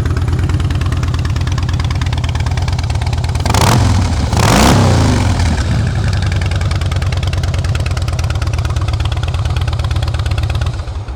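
Harley-Davidson Twin Cam 96 V-twin idling through a Vance & Hines exhaust, with a quick throttle blip about three and a half to five seconds in, the pitch rising and falling back to idle.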